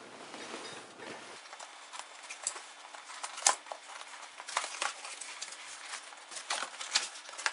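Cardboard box being opened by hand: cardboard sliding and rustling at first, then a run of sharp taps and knocks as the lid's tabs are pulled free and the lid is lifted off.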